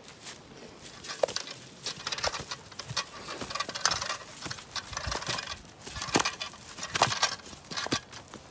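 A large salmon thrashing in a landing net on dry ground, making irregular slaps and rustles of net mesh and dry leaves.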